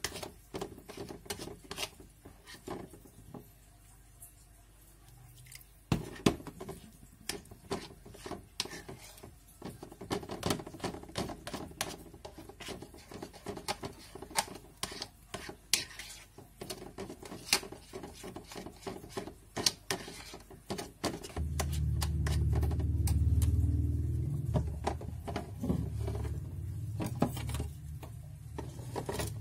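Metal spoon stirring and beating thick flour-and-margarine batter in a glass bowl, with frequent clicks and scrapes of the spoon against the glass. About two-thirds of the way in, a low steady rumble starts and becomes the loudest sound.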